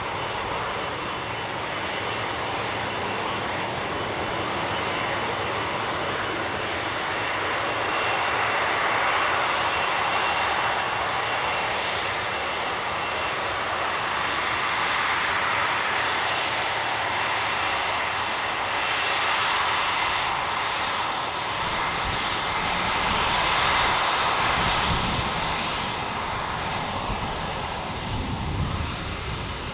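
Boeing 747 jet engines running at taxi power: a steady roar with a constant high whine. The sound swells to its loudest about three-quarters of the way through, with a deeper rumble joining in, then eases off.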